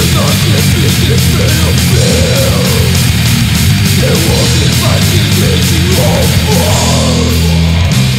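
Old-school death metal recording: heavily distorted electric guitars and bass over fast drums with steady cymbal hits, loud and unbroken.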